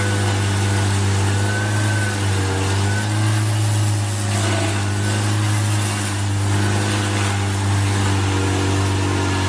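A heavy machine's engine running steadily at an even speed, with a deep, constant hum.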